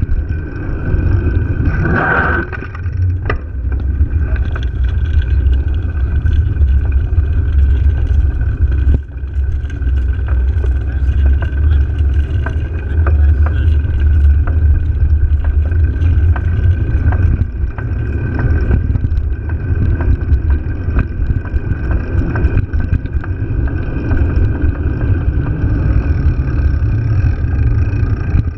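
Wind buffeting a bicycle-mounted action camera's microphone, over a deep tyre rumble on rough asphalt, with scattered clicks and rattles from the bike. A brief high-pitched sound about two seconds in.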